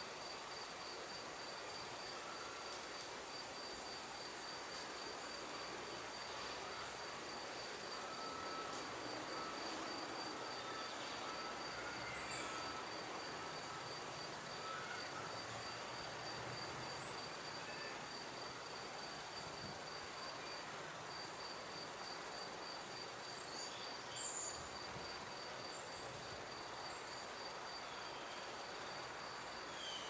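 A cricket chirping in a steady, rapid run of even high pulses that breaks off briefly and resumes. A few faint, short, high bird chirps come now and then.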